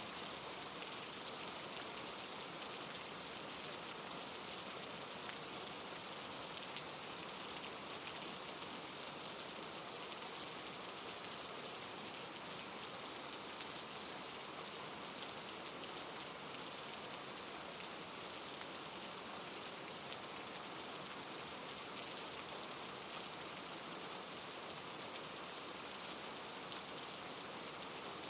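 Steady soft rain falling, an even hiss of many fine drops with no let-up.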